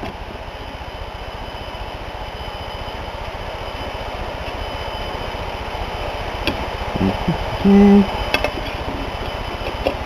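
Small metal hand tools clicking and tapping against a Ford AOD transmission valve body while a stiff, jammed valve is worked out of its bore, a few sharp clicks in the second half over a steady hiss.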